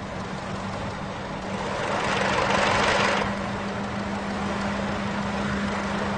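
1919 Wolseley's shoe brake on a spinning wheel: a steady low hum with a rushing scrape that swells about two seconds in and dies away a second later, as the high-friction brake shoe is forced against the wheel to slow it.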